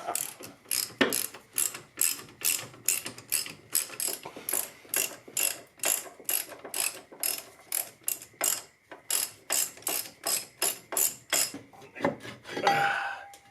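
Hand ratchet with a 13 mm socket clicking steadily, about four clicks a second in repeated strokes with short pauses, as the rear brake caliper bolts are backed out. A brief scrape near the end.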